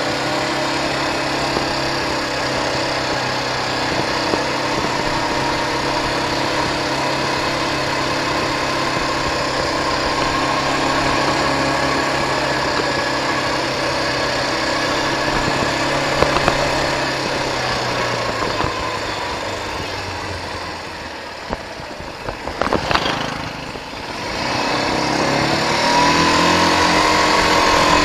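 K-Lion Santa 200 quad bike's engine running steadily at low speed while riding. About two thirds through it drops off, with a few sharp knocks, then picks up again with a rising pitch near the end.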